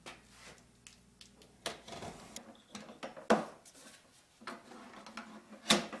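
Handling noises: irregular clicks, knocks and rustles, with the sharpest knocks about three seconds in and near the end.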